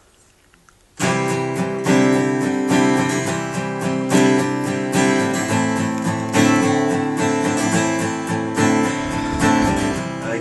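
Acoustic guitar strumming the instrumental intro of a song, coming in about a second in after faint background hiss.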